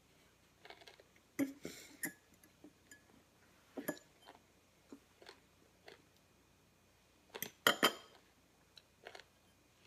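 A fork clinking and scraping against a bowl, mixed with chewing, as scattered short sounds. The loudest is a close pair of clinks about three quarters of the way through.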